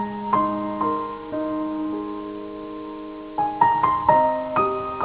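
Solo piano playing a slow, gentle melody, each note left ringing and fading, with a quick cluster of notes about three and a half seconds in.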